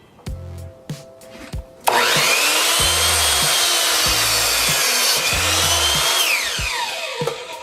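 WEN 15-amp 10-inch sliding compound miter saw switching on about two seconds in, its motor whine rising quickly, then cutting through a 2x6 board. Near the end the motor winds down with a falling whine. Background music with a steady beat plays underneath.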